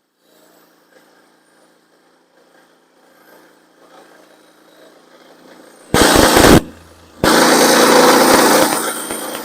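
Portable bandsaw mill's gas engine, faint and steady at first, then two sudden loud spells of running about six and seven seconds in, the second easing off to a steadier level near the end.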